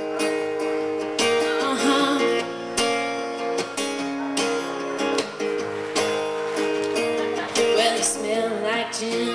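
Acoustic guitar strumming the intro of a country song, steady chords at an even pace, with a woman's singing voice coming in near the end.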